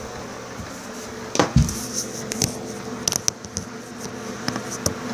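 Camera being handled and set down: scattered knocks, rubs and sharp clicks, with a heavier thump about one and a half seconds in, over a steady low hum.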